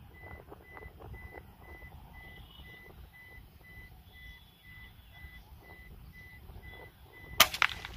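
A steady electronic beep repeating about three times a second, then about seven seconds in a single sharp crack as a Hatsan Nova Tact .22 PCP air rifle fires.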